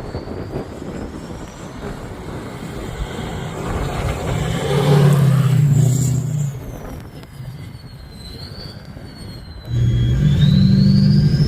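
Diesel pickup truck engine pulling under throttle, with a high turbo whistle. The whistle falls away as the engine eases off, then rises again as the engine comes back on hard near the end.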